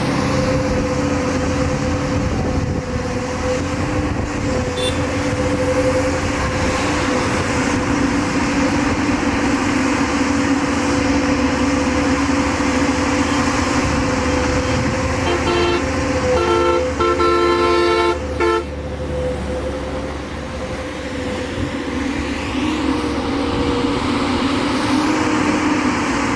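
A JCB backhoe loader's diesel engine running steadily as it works. About fifteen seconds in, a horn sounds in a quick series of short beeps for about three seconds.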